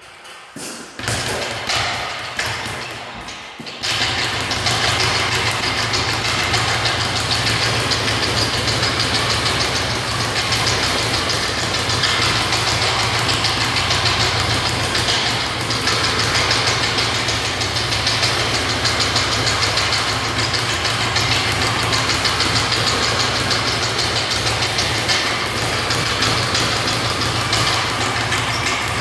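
Speed bag punched very fast with gloved hands, the bag rebounding off its platform in a continuous rapid rattle like a machine gun. A few separate hits at first, then from about four seconds in an unbroken fast drumming.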